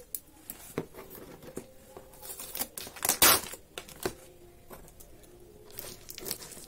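Cardboard parcel being opened: scattered knocks and scrapes on the box and packing tape being cut with scissors and torn, with the loudest rasp about three seconds in.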